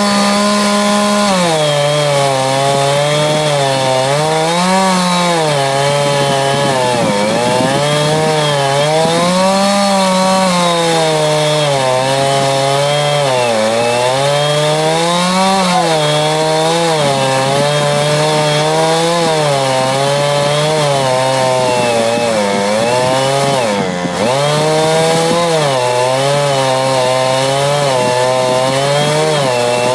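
Chainsaw running at full throttle while ripping lengthwise through a log to saw off a board, its engine pitch sagging and recovering every two to three seconds as the chain loads up in the cut. The engine note briefly drops once about three quarters of the way through.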